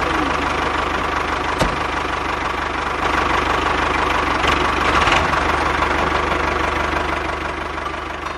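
Small engine of a homemade mini tractor running steadily with a fast, even beat, with one sharp click about a second and a half in.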